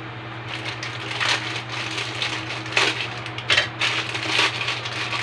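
Plastic wrapper of an instant-noodle packet crinkling and tearing in short crackles as it is opened by hand, over a steady low hum.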